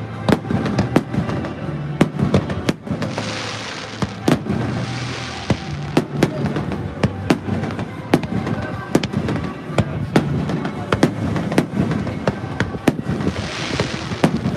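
Fireworks going off: a rapid, irregular run of sharp bangs, with two spells of hissing crackle.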